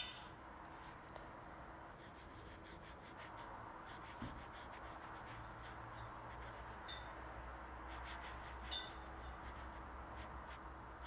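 Marker pen rubbing on paper in small circles as a shape is coloured in, faint and continuous, with a sharp click at the start and a couple of light ticks about 4 and 9 seconds in.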